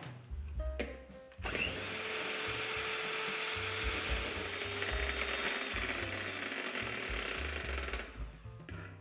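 Ariete Mixy electric hand mixer running, its beaters whisking a mixture in a plastic bowl. It starts about a second and a half in and stops near the end, with a steady motor hum that drops a little in pitch partway through. Background music plays underneath.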